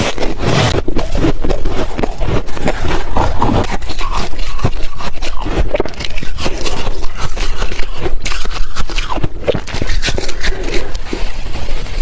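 A person chewing and crunching ice, heard as a dense, continuous run of crackling crunches.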